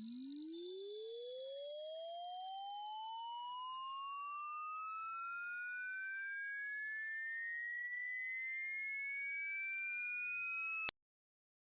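A single loud, pure electronic tone rising slowly and steadily in pitch through the high range, with fainter tones sliding beneath it. It cuts off abruptly near the end.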